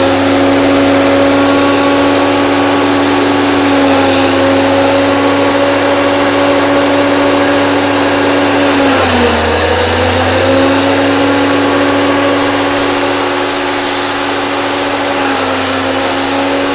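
An engine runs steadily at one speed. About nine seconds in, its pitch sags briefly, then comes back up.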